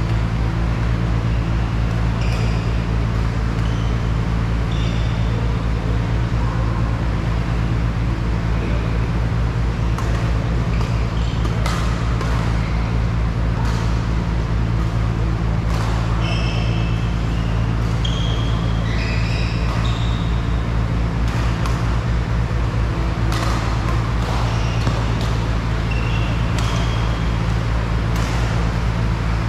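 Badminton rallies in a hall: sharp racket-on-shuttlecock hits and short high squeaks of court shoes, heard irregularly over a loud, steady low hum.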